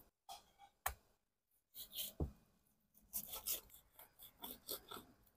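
A large cleaver slicing and scraping through raw chicken on a wooden chopping block: quiet cutting and rubbing with a few light taps of the blade on the wood.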